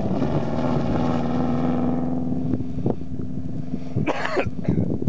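Subaru Impreza rally car's flat-four engine running at high revs as it slides on dirt, fading about two seconds in as the car pulls away, with a few short clicks. About four seconds in comes a brief rush of noise.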